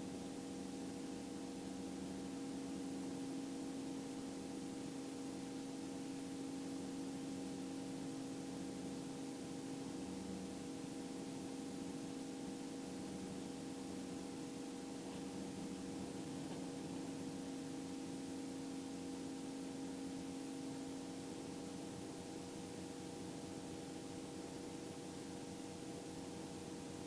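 Faint, steady hum with hiss: R44 II helicopter cabin noise heard through the headset intercom between radio calls.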